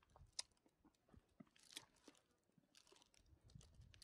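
Near silence with a few faint, scattered crunching clicks.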